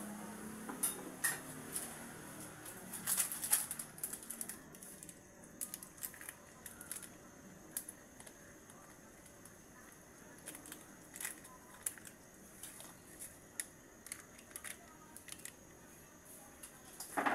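A lidded pot of milkfish sinigang heating on a gas stove: scattered, irregular faint clicks and ticks over a steady hiss. A faint voice fades out in the first two seconds.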